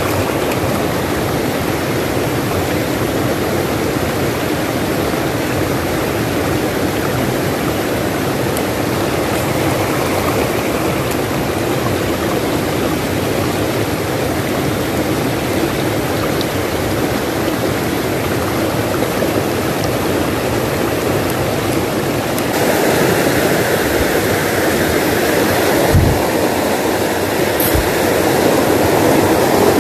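Shallow rocky stream running steadily over stones. Past two-thirds of the way through it grows louder and brighter as rapids cascade between boulders close by. One dull thump comes a few seconds before the end.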